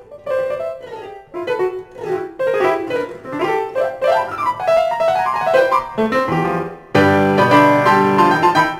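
Grand piano played solo: quick runs of single notes in the middle register, then about seven seconds in a loud, full chord with deep bass struck and held, fading away near the end.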